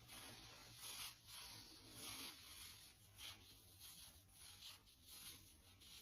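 Nylon stockings rubbing: faint, irregular swishing strokes, roughly one a second, over a low hum.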